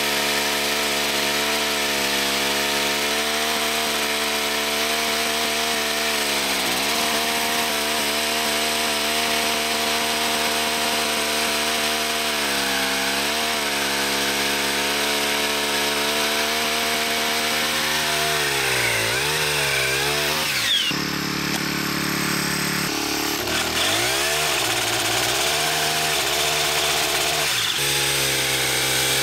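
Poulan Pro 28cc two-stroke trimmer powerhead running at high revs, driving a pole saw attachment whose chain is cutting through a log. The engine pitch dips briefly several times as the chain bites into the wood, then picks up again.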